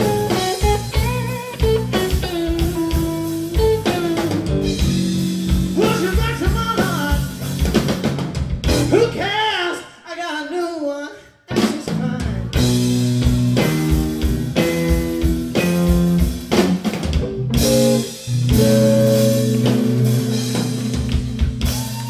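A blues band playing live: electric guitar playing lead lines with bent notes over bass and drums. About eleven seconds in, the band stops dead for a moment, then comes back in together.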